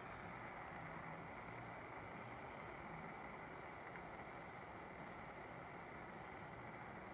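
Gas soldering torch burning with a steady, faint hiss while it heats an anti-theft bolt.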